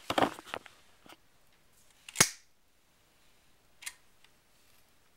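Handling noise of small objects: a brief clatter, then a single sharp click about two seconds in and a fainter click near four seconds in.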